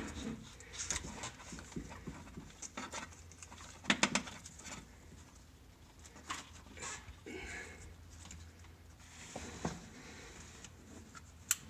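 Scattered clicks, knocks and rustles of hands disconnecting and reconnecting starter relay wiring under the hood, with sharper knocks near the start, about four seconds in and near the end.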